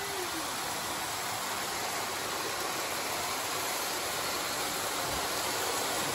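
Lionel model trains running around the layout's track loops: a steady, even whir of the locomotives' motors and the wheels on the rails. A held tone slides down and fades within the first half second.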